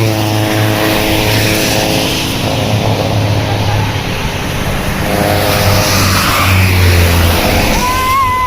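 A large bus's diesel engine revving hard as it drives past, swelling twice. There is a short rising tone near the end.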